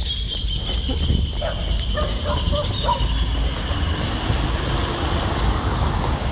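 Wind and handling rumble on a handheld phone's microphone carried by a jogger, with a steady high-pitched whine running underneath. A few short faint calls come between about one and a half and three seconds in.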